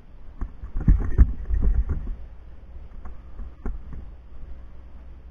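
Handling noise from an action camera being moved about: low rumbling and rubbing with wind on the microphone. It is loudest in a cluster of thuds about a second in, with a single sharper knock past the middle.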